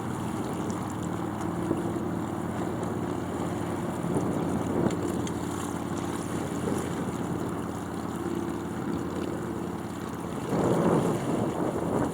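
Wind rushing over the microphone of a camera mounted on a sailboat's mast while under sail, a steady buffeting that swells louder briefly about ten and a half seconds in.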